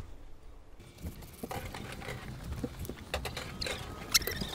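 Window-cleaning gear being handled at a window: scattered clicks, taps and rubbing, with one sharp click about four seconds in.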